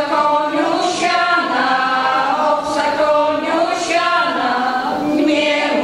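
Women's folk choir singing unaccompanied, holding long notes in short phrases with brief breaks between them.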